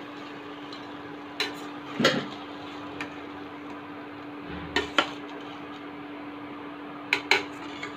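Metal spatula clanking and scraping against a stainless steel pan while chicken pieces are stirred into masala, in scattered strikes that often come in quick pairs. A steady low hum runs underneath.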